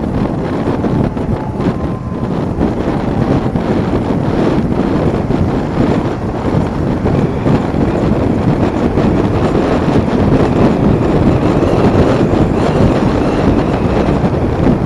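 Motorcycle riding along a highway: steady wind rushing over the microphone, with engine and road noise underneath.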